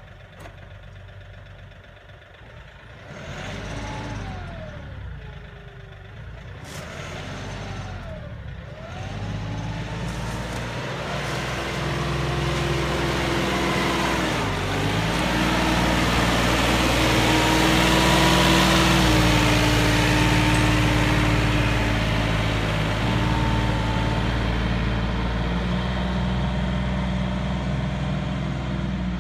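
Kioti NX series tractor's diesel engine working under load as it pulls a box scraper through spread aggregate. Over the first several seconds the engine pitch dips and recovers a few times, then it holds steady, growing louder to a peak about halfway through as the tractor passes close, with the scrape of the blade through the material, and slowly fading after.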